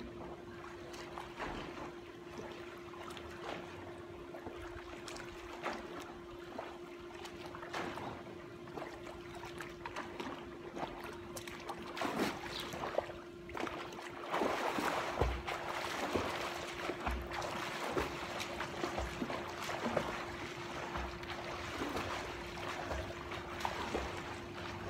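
Water splashing and lapping in a swimming pool as a person swims, in an irregular run of splashes that grows louder about halfway through. A steady low hum runs underneath.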